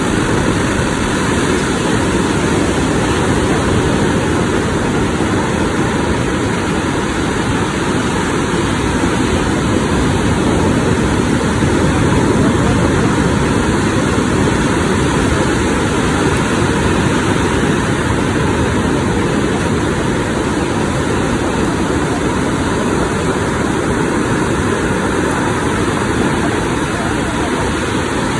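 Surf breaking and washing up the beach: a loud, steady rush of noise with no pauses.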